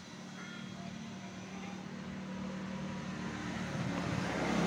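A motor running with a steady low hum, growing steadily louder.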